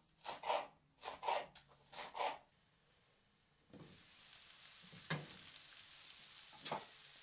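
Knife chopping green onion on a wooden cutting board, several quick strokes. After a short pause, onion and grated carrot frying in oil in a pan give a faint steady sizzle, with a couple of light knocks as the glass lid comes off.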